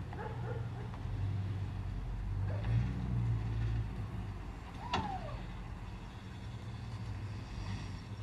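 Car engine running with a low, steady rumble that swells for about a second around three seconds in. About five seconds in there is a sharp click followed by a short squeak that falls in pitch.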